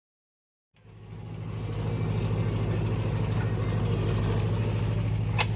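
A diesel engine of the backhoe loader or tractors running steadily at idle, fading in after a short silence, with a sharp click near the end.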